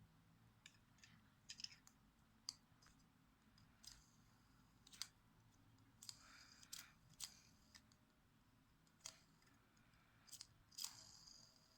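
Lego plastic pieces being handled: faint, irregular clicks and short scratchy scrapes at uneven intervals.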